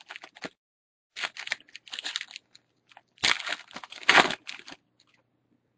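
A Bowman baseball card pack's wrapper being crinkled and torn open by hand, in three irregular rustling bouts, the loudest about four seconds in.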